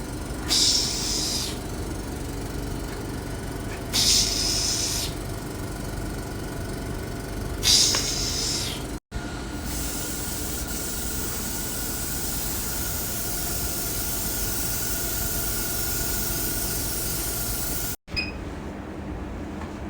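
Three short bursts of spraying hiss, each about a second long, over a steady machine hum. After an abrupt cut about nine seconds in, a steady hiss with a faint high whine runs on until another cut near the end.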